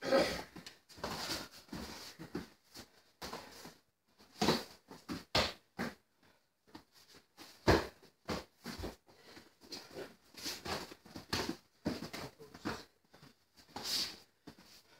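Irregular slaps and thumps of taekwondo sparring: padded kicks and gloved punches landing on sparring gear, and padded feet stepping and shuffling on foam mats. Several sharper hits stand out, the loudest about halfway through.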